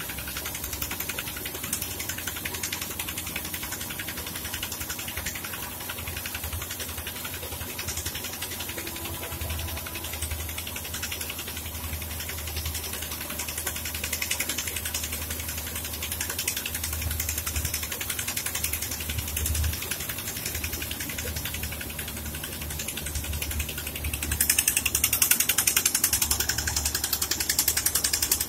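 A 500 mm horizontal boring rig running under a road, its rotating cutter head grinding through the soil at the pit wall, with a fast mechanical rattle over a low engine-like rumble. The rattle gets louder shortly before the end.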